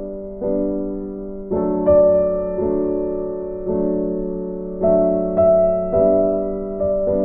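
Background music: piano chords struck about once a second, each chord ringing and fading before the next.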